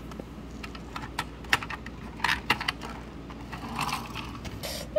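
Irregular light clicks and taps of a hard plastic toy police vehicle being handled and moved about on a wooden tabletop.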